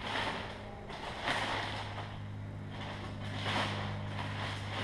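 Soft rubbing and rustling from handling, coming in a few short swells, over a steady low hum.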